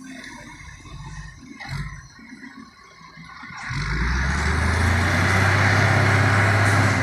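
Caterpillar 980 wheel loader's diesel engine, low at first, then revving up about halfway through and running hard and steady.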